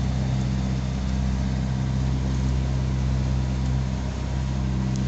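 Engine of a motorized passenger boat running steadily at cruising speed, a low, even drone heard from on board.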